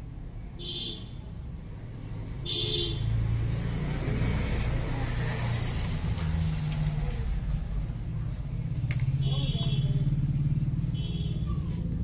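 A steady low rumble, louder from about three seconds in, with four short high-pitched chirps scattered through it.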